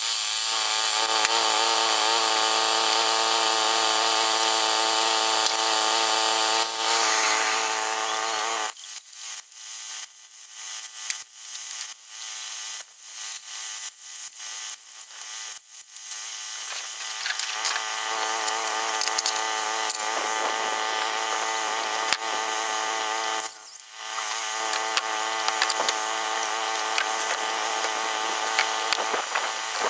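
Portable bandsaw sawmill running, its engine holding a steady pitch under the hiss of the blade cutting through a large pine log. About nine seconds in the steady engine tone drops away for several seconds, leaving choppy clattering noise, then the engine-and-blade sound returns steadily from about seventeen seconds on, with a short dip near twenty-four seconds.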